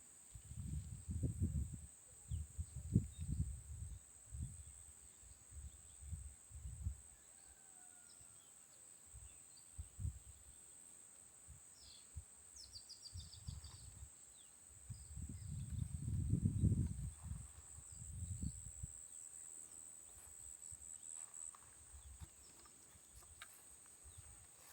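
Steady high-pitched drone of insects in tropical forest, with low rumbles on the microphone in the first seven seconds and again around the middle, and a short rapid chirping series a little past halfway.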